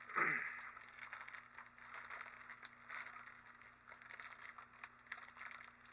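Plastic wrapper of an individually wrapped Twinkie being torn open and crinkled, loudest just at the start, then scattered crinkling as it is pulled off.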